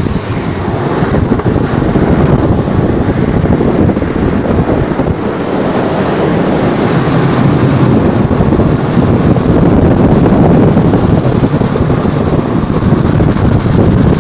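Loud wind buffeting a microphone that is moving at downhill skating speed, with a steady low road rumble beneath it.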